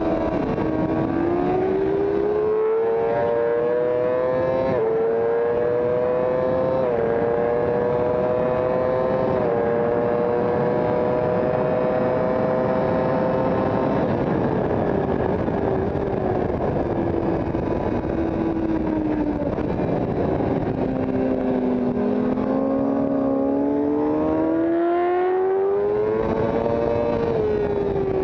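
Sport motorcycle engine heard from on board under hard acceleration: it revs up through the gears with upshifts about five, seven and nine seconds in, then the pitch falls steadily as the rider slows, climbs again through another gear and drops just before the end. Constant wind rush over the microphone at track speed.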